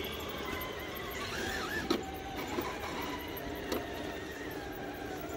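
High-pitched whine of RC rock crawlers' electric motors and geared drivetrains as they crawl, with two sharp clicks about two and three-and-a-half seconds in.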